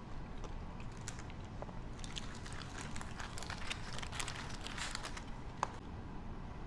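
A person chewing crispy fried food with crisp crunching clicks, busiest in the middle, over a steady low rumble.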